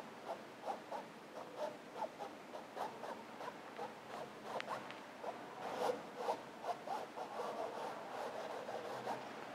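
Paintbrush stroking acrylic paint onto canvas in short, quick scratchy strokes, about two or three a second, turning into a steadier scrubbing near the end.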